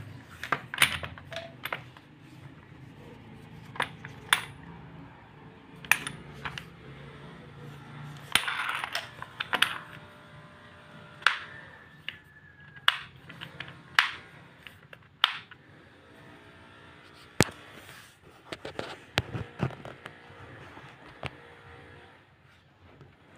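Irregular sharp clicks and knocks of a Bosch GSB 550 corded impact drill and its power cord being handled and set down on a hard floor. No motor is running.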